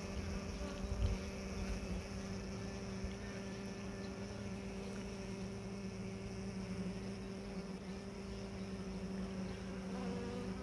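Honeybees buzzing at the entrance of a small polystyrene mating nuc, a steady low hum. Some low rumbling in the first second or so.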